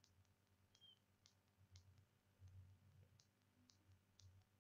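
Near silence: faint room tone with a low hum and about ten faint, scattered clicks.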